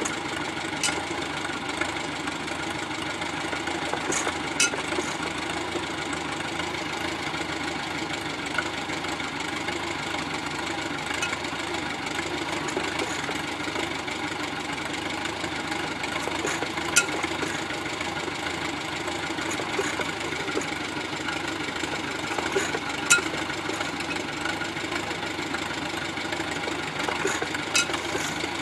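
A 1.5 hp Sattley hit-and-miss engine turning over on a belt drive during a start attempt: a steady mechanical running sound with a handful of sharp pops scattered through it.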